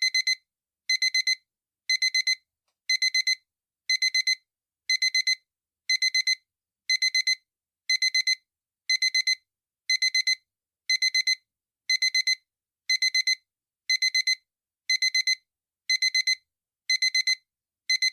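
Digital alarm clock beeping. It sounds in quick groups of four high-pitched beeps, one group every second, repeating steadily.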